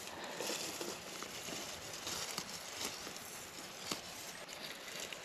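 Soft rustling and crackling of moss and forest litter, with scattered small snaps and one slightly louder click about four seconds in, as a large porcini (king bolete) is worked out of the moss by hand.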